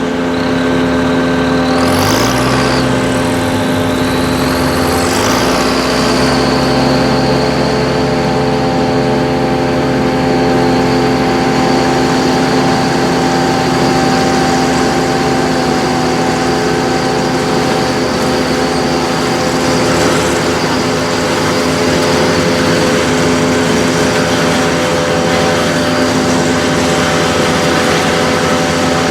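Farm tractor engines running steadily in a maize field, with a steady high whine over the engine. The engine pitch briefly rises and falls twice in the first few seconds.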